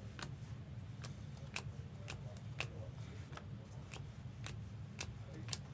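Stiff chrome trading cards being flipped through and handled by hand: a run of irregular sharp clicks, about two to three a second, over a low steady hum.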